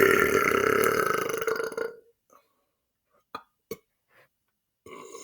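A man's long, loud, deliberate belch that lasts about two seconds and then stops. Two faint clicks follow in the quiet, and near the end a softer, shorter sound begins.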